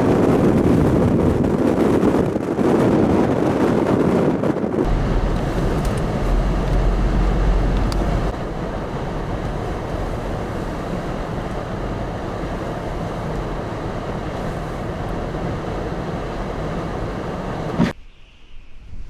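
Blizzard wind buffeting the microphone as a heavy, rushing noise, louder for the first five seconds and then steadier, with a deep rumble a few seconds in. It cuts off suddenly near the end.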